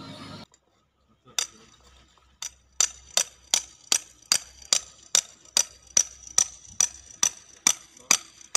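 Metal-on-metal tapping: sharp, ringing clinks at a steady pace of about two and a half a second, starting about a second and a half in. The likely source is a steel bar knocking on the concrete mixer truck's steel discharge chute during the pour.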